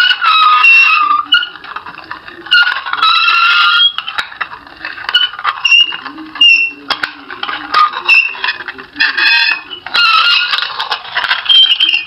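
A series of loud, squealing creaks with short gaps between them, each lasting up to about a second, their high pitch sliding up and down.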